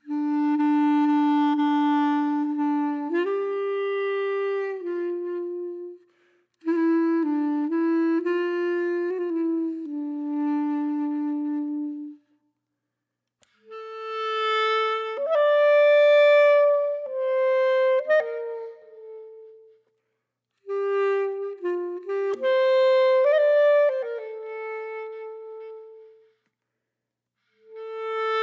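Background music: a solo woodwind playing a slow melody of long held notes, in phrases broken by brief silences.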